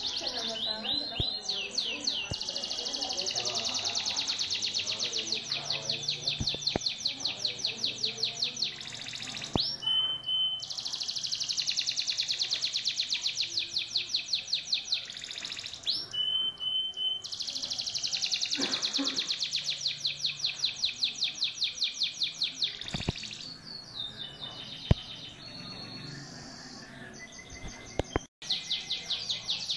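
Caged domestic canary singing long phrases of fast rolling trills, each several seconds long. Two brief pauses hold short steady whistled notes, and the song becomes more broken near the end.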